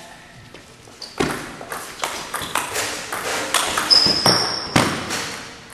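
Table tennis rally: a celluloid ball clicking in quick succession off bats and the table top, about three to four clicks a second, starting about a second in and stopping about five seconds in. A brief high squeak sounds near the middle of the rally.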